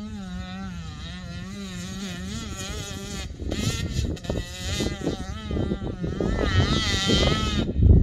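Dirt bike engine revving, its pitch rising and falling as the throttle opens and closes. From about three seconds in, a rougher, uneven noise mixes in, and near the end the engine climbs in pitch once more.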